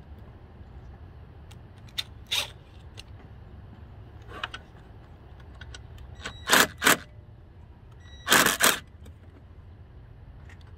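Metal tools and parts handled while working under the hood: a handful of short clinks and scrapes, including two quick ones close together and a louder one near the end, over a low steady hum.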